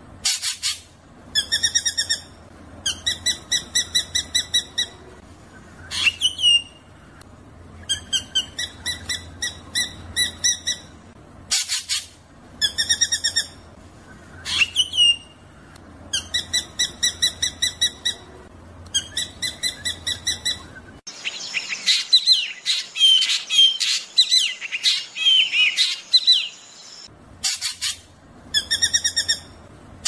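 Drongo song: repeated bursts of fast, buzzy rattling notes, each about a second long, broken now and then by a downward-sliding whistle or a harsh rasp. About three quarters of the way through comes a stretch of dense, quick chattering whistles.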